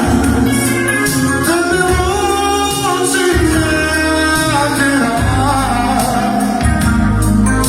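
Live band music with a lead voice singing a melody over bass and guitar.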